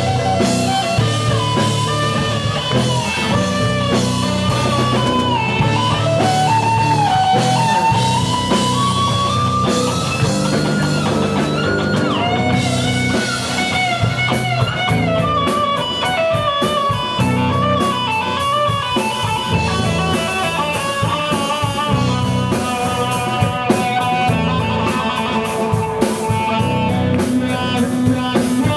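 Live rock band playing an instrumental break with drum kit: a lead line slides and bends in pitch over a steady bass, and the cymbals grow busier near the end.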